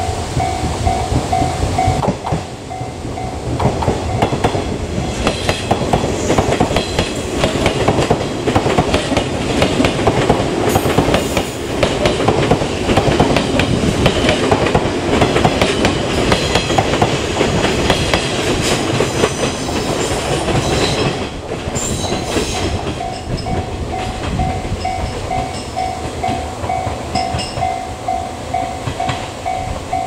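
JNR Class 485 'Irodori' electric train passing close by as it pulls away from the station, its wheels clattering over rail joints and points before it fades into the distance. A level-crossing warning bell rings at the start and again from about two-thirds of the way through.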